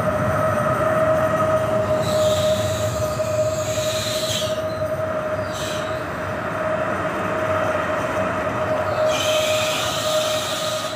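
An SKM electric multiple unit (unit 27WE008) at the platform, giving a steady high tone over a low rumble. Bursts of hiss come about two seconds in, briefly near six seconds, and again near the end.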